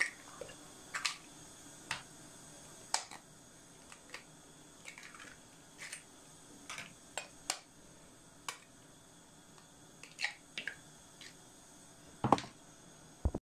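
Four chicken eggs cracked one after another into a plastic measuring jug: scattered sharp taps and cracks of eggshell, with a louder knock near the end.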